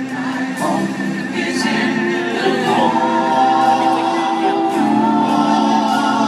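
Live Christian worship song: several singers holding long notes in harmony over a band, with a new chord about three seconds in and another change near five seconds.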